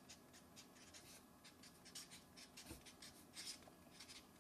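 Felt-tip marker writing on paper: faint, quick scratchy strokes of the tip across the sheet.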